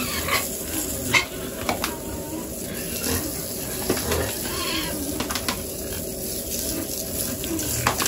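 Water hissing from a hose spray nozzle as it jets onto piglets, with piglets squealing now and then and a few sharp clicks.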